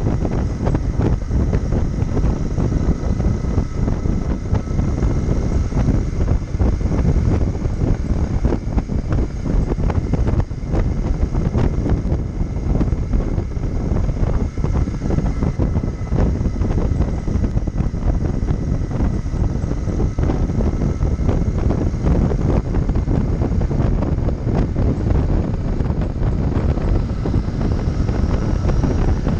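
Royal Enfield Interceptor 650 parallel-twin riding at a steady cruise, its engine running under heavy wind rush buffeting the microphone. The level stays even throughout, with no gear changes or revving.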